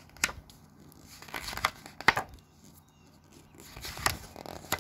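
Pages of a picture book being turned and handled: several short papery swishes and rustles.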